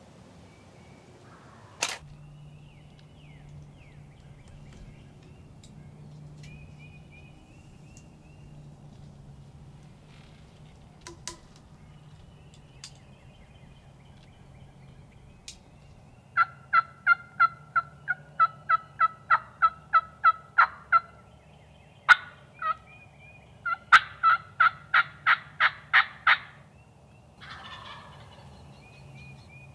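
Turkey yelping: two long series of evenly spaced yelps, about five a second, starting about halfway through, the second series louder. A sharp click comes about two seconds in.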